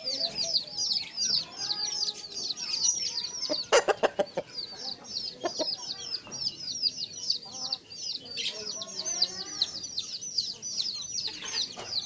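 Aseel rooster clucking in low, short calls, over constant high-pitched chirping at several chirps a second. A quick run of sharp knocks comes about four seconds in.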